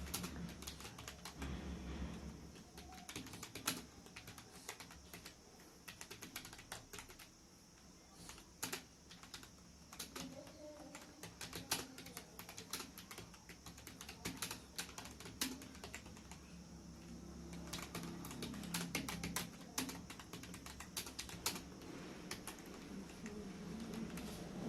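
Fast typing on a computer keyboard: a continuous, irregular stream of keystrokes, with an occasional louder key strike.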